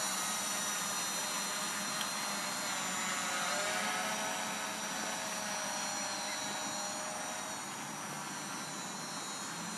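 Storm Drone quadcopter's electric motors and propellers buzzing steadily in flight, with high whining tones that shift slightly in pitch through the middle. It grows a little quieter in the second half.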